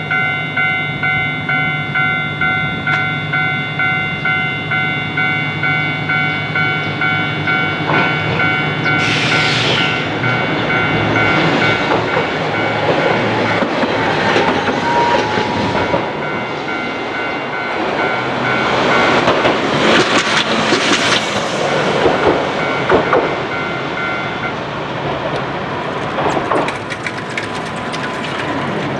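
Japanese level-crossing alarm ringing in a steady repeating electronic ding, while a Hankai Tramway streetcar rolls across with wheel clatter over the rail joints, loudest as it passes. The alarm stops about 25 seconds in, once the crossing has cleared.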